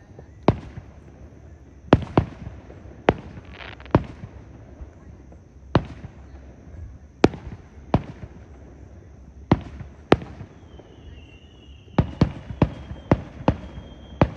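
Aerial fireworks bursting: single sharp bangs every second or so, then a quick run of about seven near the end. A faint high whistle falls slowly in pitch under the last bangs.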